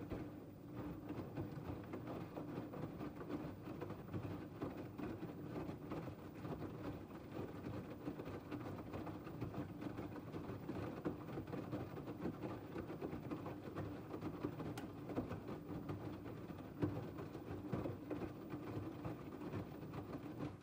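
LG TurboWash front-loading washing machine tumbling a wet cotton load in its 50 °C main wash: a steady motor hum with water sloshing and laundry splashing inside the drum. It cuts off abruptly at the end as the drum stops.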